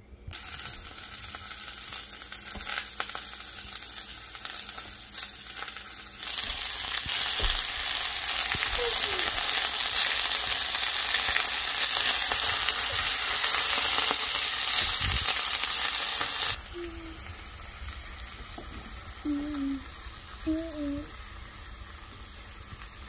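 Raw chicken pieces sizzling in hot oil in a cast-iron skillet, a steady frying hiss. It jumps louder about six seconds in and drops back about ten seconds later.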